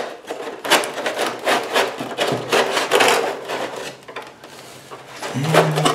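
Depron foam wing rubbing and scraping against the foam fuselage as it is forced into its slot, a run of irregular scrapes and squeaks that die down after about four seconds. A brief low hum near the end.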